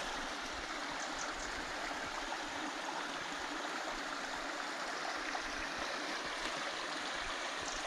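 Small mountain stream flowing, a steady rush of water with no break.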